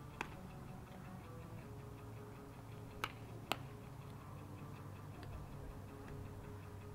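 Sharp cracks of baseballs during infield practice: one just after the start, then the loudest two about half a second apart near the middle. A faint, even ticking runs underneath.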